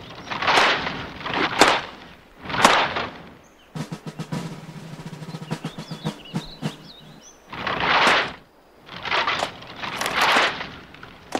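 Rifle drill: wooden-stocked drill rifles slapped into white-gloved hands and snapped into position by a platoon in unison. There are sharp slaps about a second apart, a quick run of rattling clicks in the middle, then more slaps near the end.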